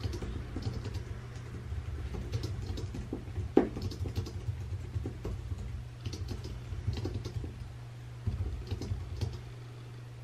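Typing on a keyboard in short, irregular runs of light clicks, with one louder knock about three and a half seconds in; the typing stops shortly before the end, leaving a steady low hum.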